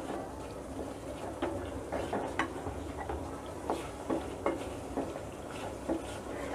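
A spoon stirring and scraping a thick onion and spice paste in a metal karahi, knocking against the pan every half second or so. Under it is a soft steady sizzle of the masala frying in oil.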